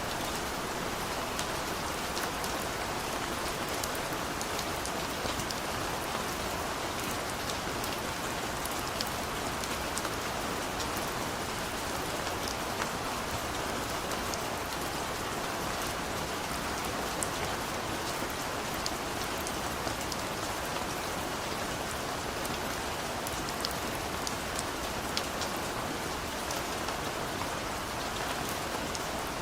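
Heavy rain falling steadily, with many sharp taps of single drops striking close by.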